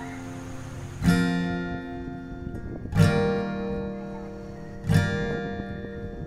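Background music: an acoustic guitar strums slow chords, one about every two seconds, each left to ring and fade.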